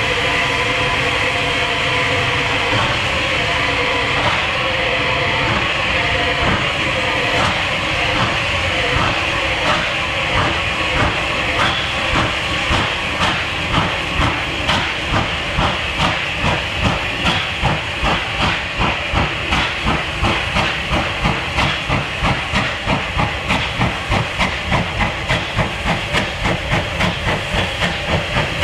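Bulleid West Country class three-cylinder steam locomotive getting a train under way: its exhaust beats rise out of a steady steam hiss and grow louder and quicker, reaching about four beats a second near the end.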